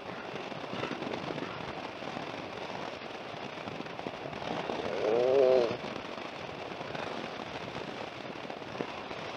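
Wind rushing and crackling on the microphone of a moving motorcycle, over road noise. About five seconds in, a brief pitched sound rises and falls for about a second, the loudest thing heard.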